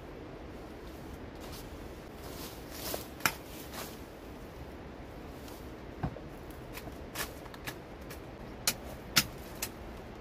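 Scattered sharp clicks and knocks of footsteps over rock and brush, twigs snapping underfoot, with a few sharper knocks close together near the end.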